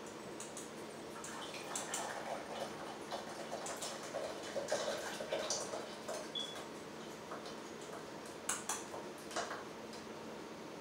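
Irregular light clicks, taps and scrapes of a kitchen utensil against a strainer and metal pot, with a little liquid trickling, while blended masa is strained into the pot for atole. The taps are busiest in the first half and come again in a short cluster near the end.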